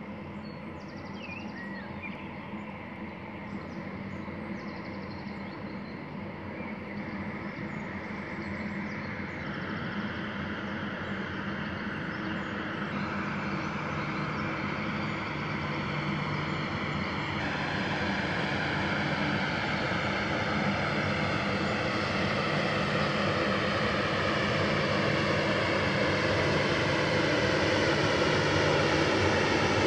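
The diesel engine of an inland tanker barge drones steadily under a broad rushing, whooshing noise, and both grow steadily louder as the ship approaches and draws level. A few faint bird chirps sound in the first seconds.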